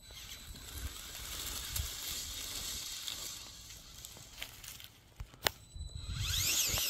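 Lego Technic 6x6 RC crawler driving through dry leaf litter: crunching and rustling from its wheels, with a few sharp knocks about four to five seconds in. Near the end comes a louder warbling squeal that quickly rises and falls over and over.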